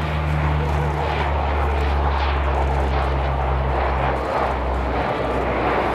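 Lockheed C-130 Hercules's four turboprop engines and propellers making a deep, steady drone as the transport flies a low pass; a higher tone in the drone drops away about four seconds in.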